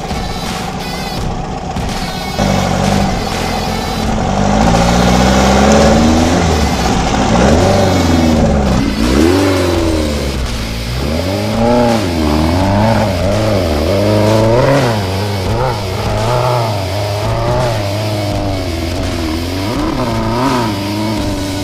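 Air-cooled Volkswagen flat-four engine of a Baja Bug revving hard under load on a steep dirt hill climb. It runs steadily at first, gets louder and revs up about two seconds in, then the revs rise and fall over and over as the throttle is worked.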